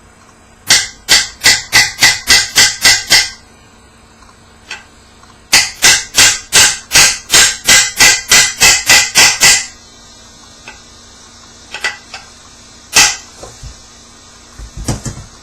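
A hammer driving a bearing into an NP246 transfer case with sharp metal strikes, about three or four a second. First comes a run of about nine, then after a pause a longer run of about fifteen, and one more strike near the end.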